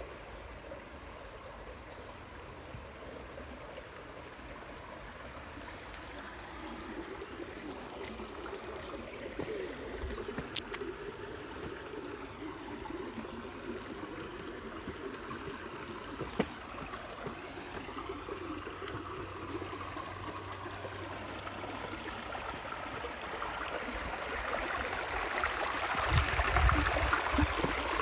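Running water: a steady rushing, trickling flow with a couple of sharp clicks, growing louder near the end.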